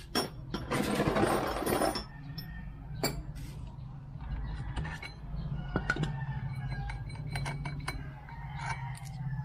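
Metal hand tools and scooter drive parts clinking and knocking as they are handled, with a louder rattling scrape about a second in, over a steady low hum.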